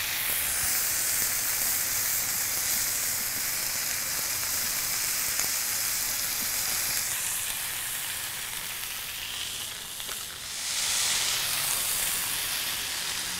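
Thin smashed 80/20 beef patties frying on a hot griddle over charcoal: a steady fat sizzle that eases briefly about ten seconds in, then picks up again.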